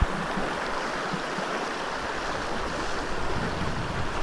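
Lake water lapping and sloshing right at the microphone of a camera held just above the surface, a steady watery rush. A single short knock right at the start.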